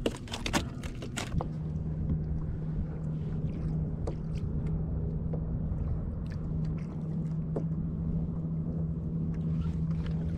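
A few sharp clicks and knocks in the first second and a half, then a steady, unchanging low hum from a boat engine over a low rumble of wind and water.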